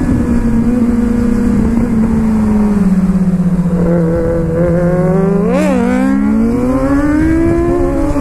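Suzuki GSX-R sport bike's inline-four engine under way, its note sinking slowly as it eases off, then a quick rev blip about five and a half seconds in before the pitch climbs again under acceleration. Heavy wind rush on the microphone runs underneath.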